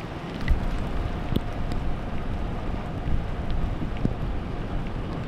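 Gusty wind rushing over the microphone with rain, turning louder about half a second in, with a few sharp ticks.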